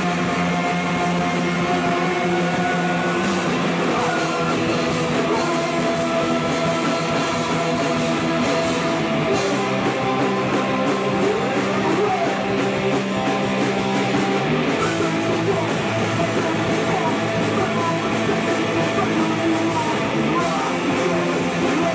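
A hard rock band playing live, with distorted electric guitar and drums with crashing cymbals, and a man singing into a microphone. The chords shift a few times over the stretch.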